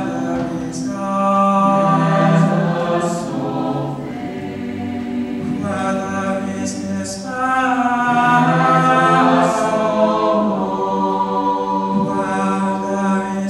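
Mixed high-school choir singing sustained chords with words, swelling louder twice.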